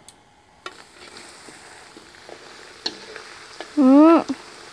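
Cornstarch-coated potato strips going into hot oil and deep-frying: a steady sizzle starts about half a second in, with scattered crackles and pops.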